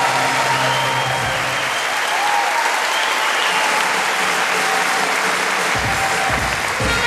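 Audience applauding in a concert hall, the band's last held chord dying away in the first second. Low drum beats start near the end.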